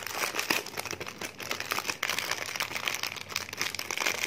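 Clear plastic packaging crinkling and rustling irregularly as hands unwrap a gold bangle from it.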